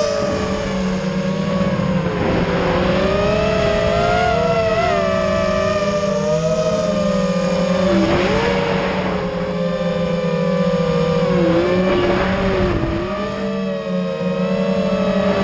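FPV quadcopter's electric motors and propellers whining, heard close up from on board, the pitch rising and falling as the throttle changes. A rush of air noise comes in three times as it swoops.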